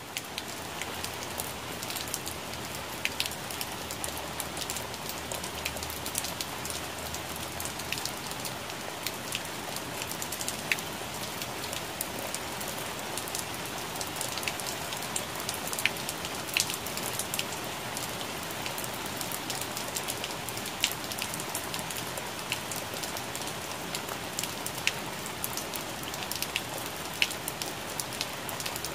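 Steady rain falling on plant leaves: an even hiss with many separate drops ticking on the leaves.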